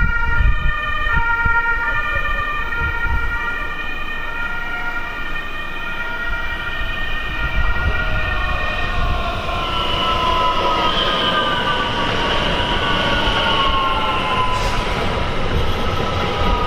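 Electric multiple unit approaching and running along the platform: a high, multi-toned whine from its traction drive holds steady, then falls in pitch from about ten seconds in as the train slows, over the low rumble of wheels on rail.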